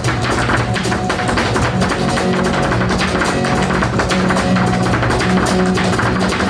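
Live flamenco music: an acoustic guitar playing steady low notes against a dense run of sharp percussive taps.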